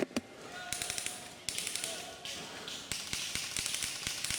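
Airsoft guns firing in the game around, heard as rapid, irregular clicking, several clicks a second, over a high hiss.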